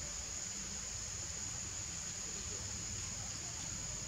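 Steady high-pitched drone of insects, unbroken, over an even low rumble.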